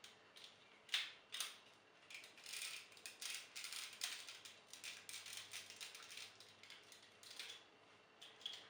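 Hard plastic parts of a Titan Megazord transforming toy being handled and pulled apart: a string of faint clicks and rattles, with sharper clicks about a second in.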